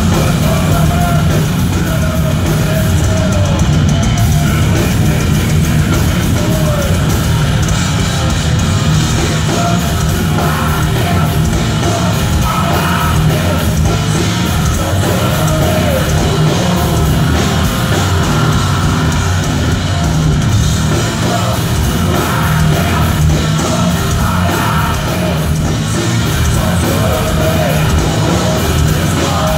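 Thrash metal band playing live at full volume: distorted electric guitars, bass and drum kit, with shouted vocals over them, heard from the crowd.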